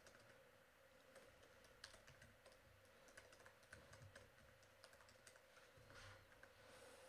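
Faint, irregular clicks of a computer keyboard being typed on, over a faint steady hum.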